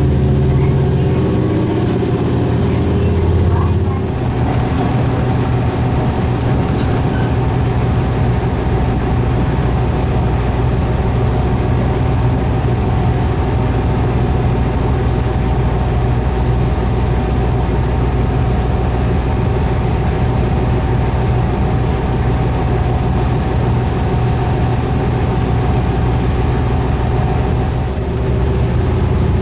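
Diesel railcar running, heard on board: a steady engine drone with a held tone above it. The engine note changes about four seconds in and again near the end.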